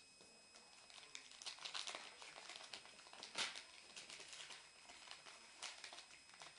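A homemade pack of hockey trading cards being torn open and handled: faint rustling and crinkling of the wrapper and cards, with the sharpest crackle about three and a half seconds in.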